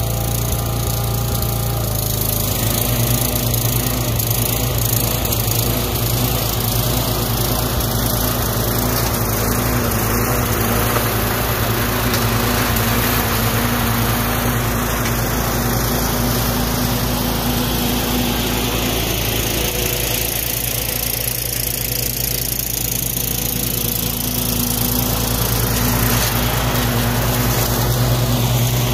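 Troy-Bilt Super Bronco riding mower's 20 hp Kohler Courage engine running steadily as the mower is driven, a little louder near the end as it comes close.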